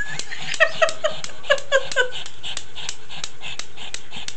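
A pug whining in six short, falling yips in quick succession in the first two seconds, over a fast, even clicking of about four clicks a second.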